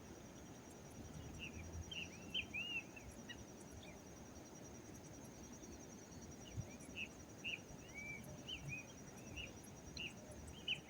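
Birds chirping: many short, quick calls repeated irregularly, over a faint steady high insect trill and a low background hiss.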